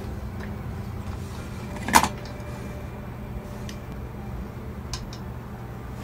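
Insulated electrical wires being handled and pulled at metal conduit junction boxes, with one sharp click about two seconds in and a few faint ticks later, over a steady low hum.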